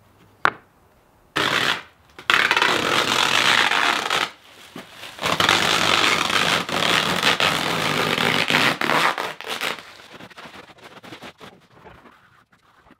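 Scraping and rubbing across a corrugated metal floor as it is cleaned off by hand, in two long stretches from about a second in, fading out near the end.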